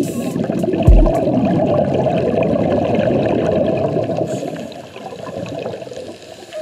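Muffled underwater rushing and bubbling heard through an action camera's waterproof housing, with a low knock on the housing about a second in. It fades after about four and a half seconds as the camera nears the surface.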